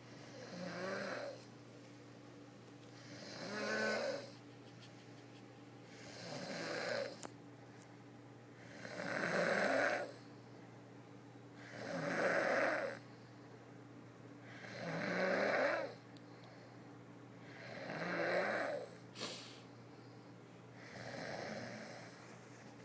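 A woman snoring in a steady rhythm, one snore about every three seconds, each lasting about a second and a half. A brief sharp click comes between two snores near the end.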